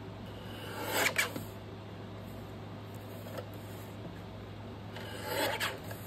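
Paper being cut with a paper cutter: two short rasping cuts, one about a second in and another near the end.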